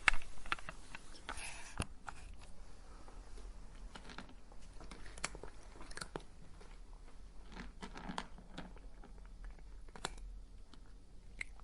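A cat crunching dry kibble: irregular crisp bites and chewing, loudest right at the start.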